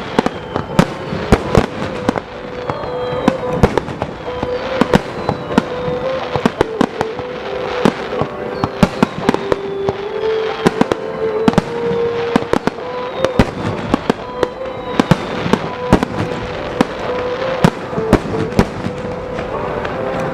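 Fireworks display with shells going off in rapid succession, many sharp bangs close together, over sustained background music notes.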